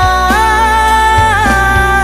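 Background music: a sung melody with wavering, ornamented notes over a steady bass and beat.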